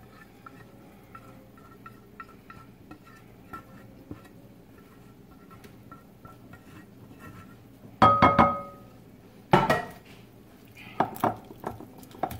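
A spatula scrapes cooked ground turkey out of a cast-iron skillet into a glass bowl, with faint scraping and small clinks. About eight seconds in comes a loud knock of cookware with a short ringing tone, another knock a second and a half later, then a few clinks against the bowl as the mixing starts.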